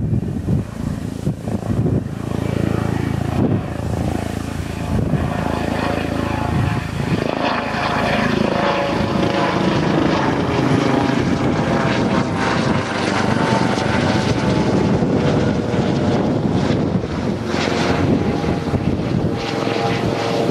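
Boeing 737 jet engines running loud as the airliner moves along the runway, a steady rush with whining tones that slide down in pitch about eight seconds in as it passes.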